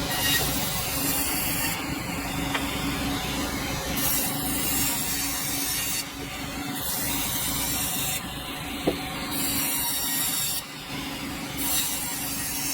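Sawmill running, its blade cutting through a dense hardwood log: a steady low hum under a rasping hiss that comes and goes every couple of seconds, with a single sharp tick about nine seconds in.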